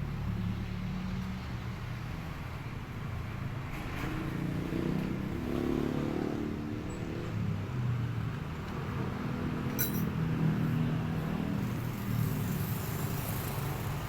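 Small Honda stationary engine running, its pitch rising for a few seconds around the middle before settling back. A sharp click sounds about ten seconds in.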